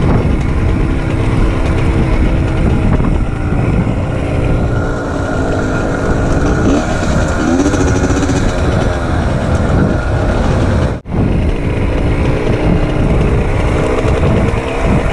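A 2002 Yamaha YZ85's single-cylinder two-stroke engine running, its pitch rising and falling with the throttle. The sound drops out for a moment about eleven seconds in.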